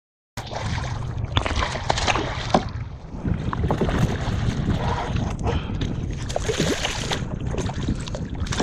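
Wind on the microphone and water sloshing and splashing at a kayak's side, with scattered knocks on the hull, as a hooked speckled trout is brought alongside to be netted. The sound starts abruptly about a third of a second in.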